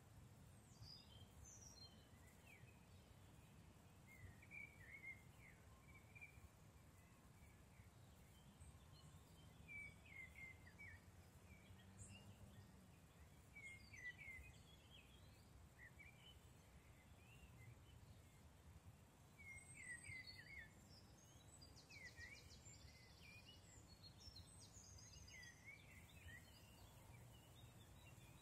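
Faint woodland birdsong: small birds chirping in short scattered phrases, with a rapid, evenly pulsed trill about three-quarters of the way in, over a steady faint low rumble.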